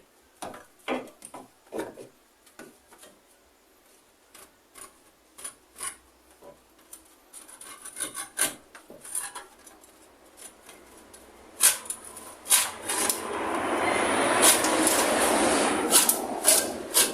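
Timber being worked by hand: scattered light clicks and knocks, then about four seconds of steady, loud scraping against wood near the end.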